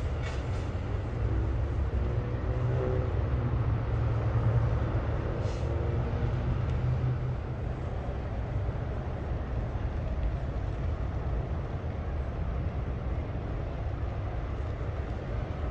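Steady low rumble of highway traffic, with a vehicle going by in the first few seconds and short high hisses near the start and about five and a half seconds in.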